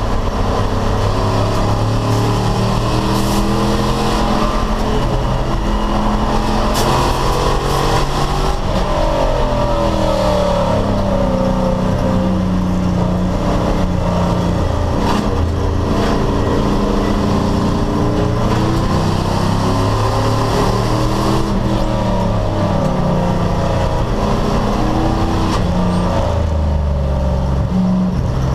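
Racing sedan's engine running hard, its pitch climbing and dropping again and again as it revs up through the gears and brakes down for corners.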